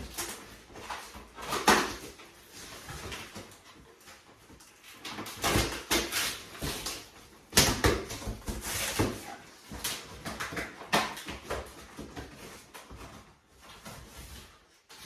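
A cardboard delivery box being opened and its packaging handled: irregular rustling, scraping and a few sharper knocks as flaps, packing and boxed tools are pulled about.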